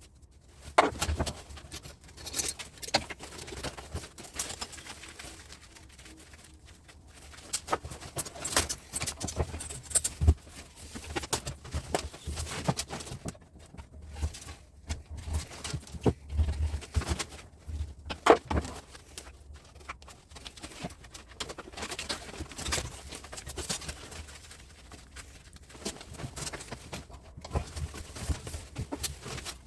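Insulated copper wire being stripped by hand with a knife: irregular scraping, slicing and clicking of the blade and wire, with sharper knocks here and there as the wire is handled. The loudest knock comes a little past halfway.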